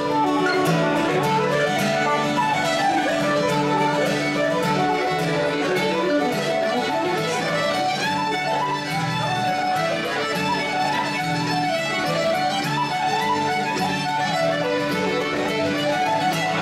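A traditional Irish session tune played by a group together: fiddle and button accordion carry the melody with banjo, over a guitar strumming a steady rhythm.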